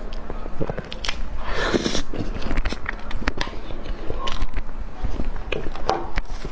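Close-miked eating of soft chocolate cake: wet mouth smacks and chewing, with a metal spoon scraping cake off a paper card partway through.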